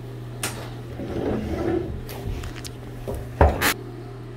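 Wire live-animal trap being handled: rustling and a few light clicks, then a louder double metal clank a little over three seconds in.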